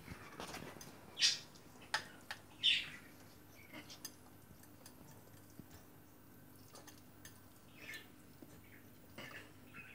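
A few short, high, bird-like chirps a second or more apart, loudest twice in the first three seconds, with light clicks of metal tweezers against a plastic food tray.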